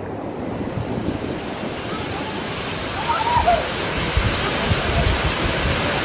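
Waterfall pouring over boulders into a rock pool: a steady rush of falling water that grows gradually louder, with low buffeting on the microphone from about halfway through.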